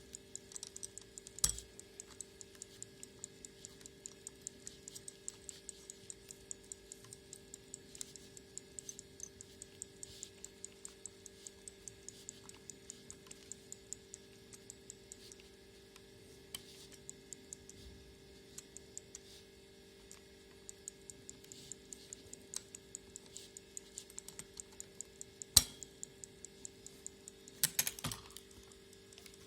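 Mechanical movement of a Soviet 'Dorozhny' folding travel alarm clock ticking quickly and evenly, roughly five ticks a second, over a faint steady hum. A few louder clicks and knocks break in, once early and in a cluster near the end.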